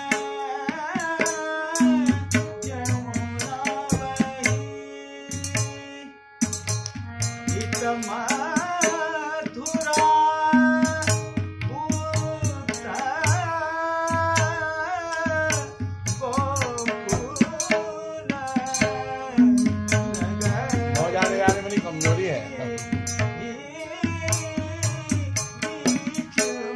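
A man singing a classical Kumauni Holi song in long, bending held notes to his own harmonium accompaniment, with a drum keeping a steady beat underneath.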